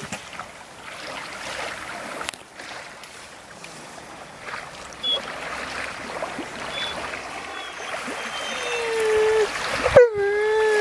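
Small waves lapping steadily at the reservoir shore, then a German shepherd whining twice near the end, each whine a high, drawn-out call that bends at its start.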